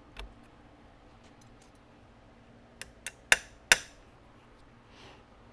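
Small steel parts of a disassembled Winchester Model 42 receiver clicking as they are worked by hand. There are a few light clicks, then two sharp metallic clicks with a short ring about three and a half seconds in, and a brief soft hiss near the end.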